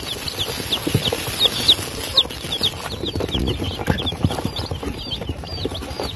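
A brood of newly hatched Sasso chicks peeping, many short high chirps a second overlapping without a break.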